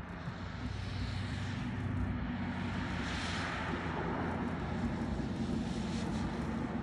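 Bugatti Bolide's quad-turbocharged 8.0-litre W16 engine running steadily as the car drives past on the track, growing louder over the first second or two and then holding.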